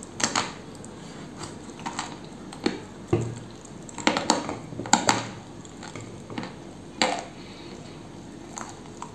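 Crunching bites and chewing of a tile of pressed edible clay spread with cream, close to the microphone: sharp, dry crunches at irregular moments, thickest about four to five seconds in.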